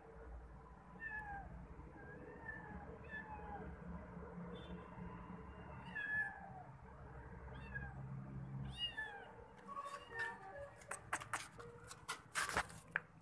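Kittens mewing: short high calls about once a second, many falling in pitch. Near the end a run of sharp clicks and knocks takes over and is the loudest thing heard.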